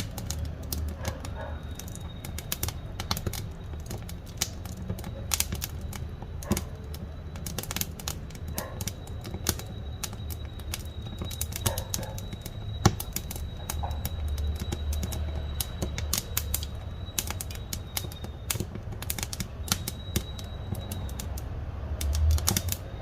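Firewood burning in a wood-fired cookstove, with many irregular sharp crackles and pops over a low steady rumble.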